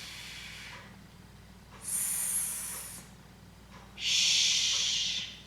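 A woman producing isolated voiceless fricative speech sounds, each held for about a second: a soft one first, then a high "sss" hiss about two seconds in, then a lower "shh" near the end.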